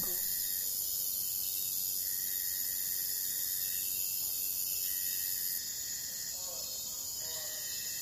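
Insects droning steadily at a high pitch, with a steady high note of about a second and a half repeating roughly every two and a half to three seconds, and faint voices in the background.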